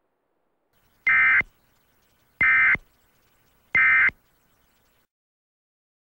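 Emergency Alert System end-of-message (EOM) data bursts: three short, buzzy digital SAME tones, about a second apart, signalling that the alert message is over.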